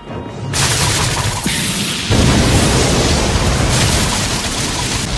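Anime battle sound effects: a loud rushing blast that starts about half a second in and grows heavier and deeper about two seconds in.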